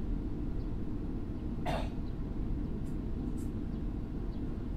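Meitetsu 6000 series electric train running, heard from inside the car as a steady low rumble. About halfway through there is one short sharp noise, and then two faint ticks.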